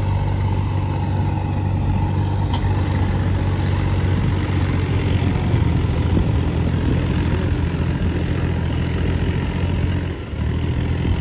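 Tractor diesel engine running steadily, with a short drop in level about ten seconds in.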